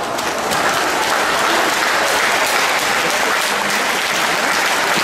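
An audience applauding steadily with dense clapping.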